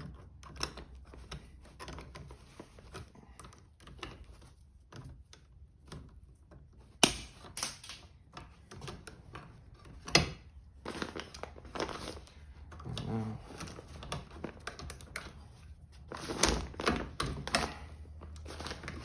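Hand work on the wiring of a switch box: bare copper ground wires being twisted together and handled, giving scattered small clicks, taps and rustles, with two sharp clicks about seven and ten seconds in and a busier run of taps near the end.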